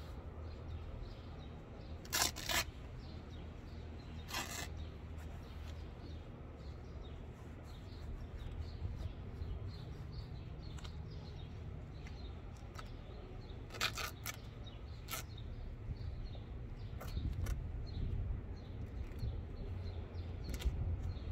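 Hands rustling and pulling at the old torn stuffing and fabric under an antique upholstered chair seat, with a few sharp clicks or snaps along the way, over a steady low rumble.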